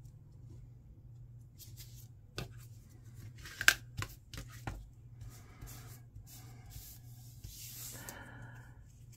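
Cardstock being handled and pressed down: light paper rustles and taps, then a plastic squeegee rubbing across the glued paper layers to smooth them. A sharp tap a little before four seconds in is the loudest sound.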